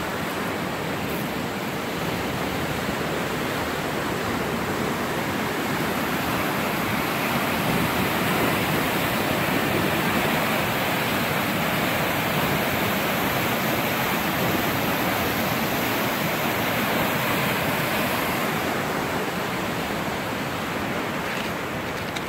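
Fast-flowing brown floodwater of a swollen river rushing and churning over its banks, a steady rush of water that grows a little louder in the middle and eases near the end.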